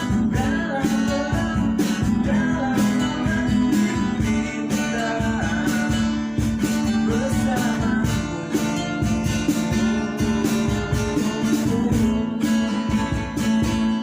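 Acoustic band music: steadily strummed acoustic guitars with a second guitar picking a melody over them, kept in rhythm by cajon strokes.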